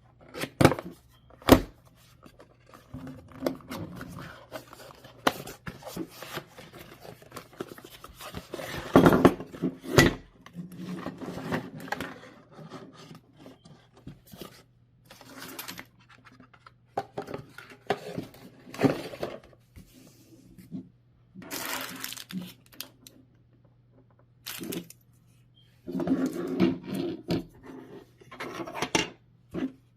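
Cardboard box being opened and a video doorbell kit unpacked: an irregular string of clicks and knocks with rubbing, scraping and tearing of packaging, busiest about a third of the way in and again near the end.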